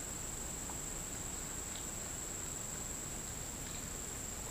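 Steady, high-pitched drone of insects, one shrill, unbroken tone.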